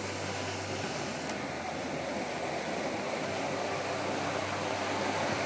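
Steady rushing noise of wind and surf on an open beach.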